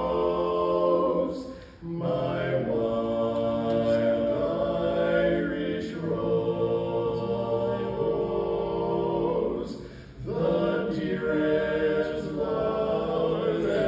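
Male barbershop quartet singing a cappella in four-part close harmony, with long held chords. The sound dips briefly twice, about two seconds and ten seconds in, between sung phrases.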